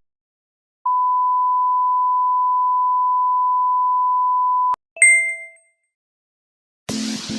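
An edited-in sound effect: a steady single-pitched beep held for about four seconds, cut off by a click, then a short bright ding that rings out and fades in under a second. Music with guitar comes in near the end.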